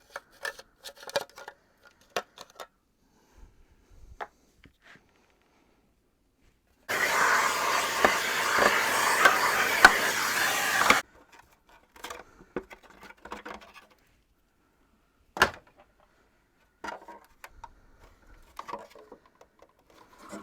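Light clicks and knocks of plastic vacuum-cleaner parts being handled during disassembly. About seven seconds in, a loud, steady rushing hiss starts abruptly and cuts off about four seconds later.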